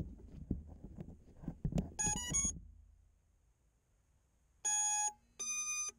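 An FPV quadcopter's BLHeli ESCs beeping through the Racestar motors: a quick run of rising start-up tones about two seconds in, then two longer beeps near the end. This is the ESCs powering up and becoming ready. Handling thumps and rumble come before the tones.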